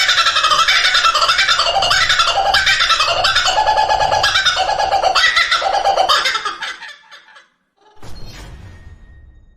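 A bird calling in a busy run of varied chirps and repeated notes, fading out about seven seconds in; a brief noisy sound follows near the end.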